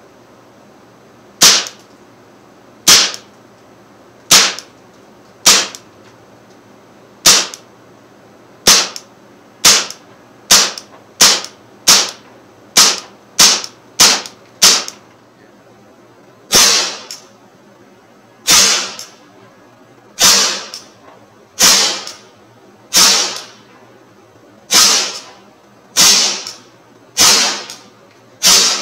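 Umarex Legends M712 CO2 blowback BB pistol firing single shots in semi-auto, each a sharp pop. About twenty shots at an uneven pace: a quick run of them in the middle, the later ones spaced further apart.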